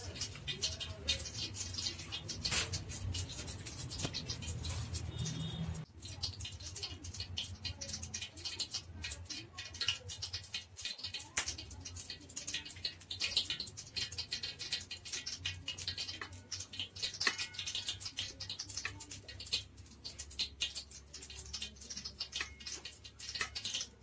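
Irregular small clicks and taps of hands working in a bowl and plate, dipping and coating peeled boiled quail eggs in spice batter, over a steady low background.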